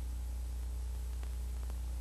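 Steady low electrical hum with a faint hiss and a couple of soft clicks a little past the middle.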